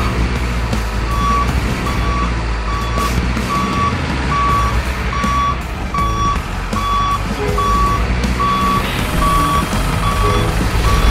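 Truck reversing alarm beeping at an even pace of about two beeps a second over a low, steady engine rumble, the sound of a dump truck backing or tipping its load.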